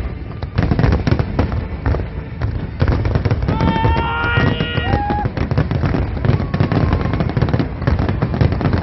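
Fireworks display: many shells bursting in rapid, continuous bangs and crackles. About three and a half seconds in, a high held tone sounds over it for roughly a second and a half.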